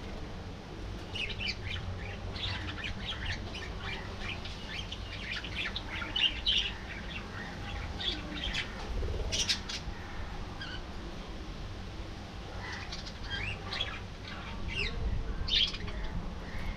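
A flock of budgerigars chirping and chattering in quick, scattered calls, with wings flapping.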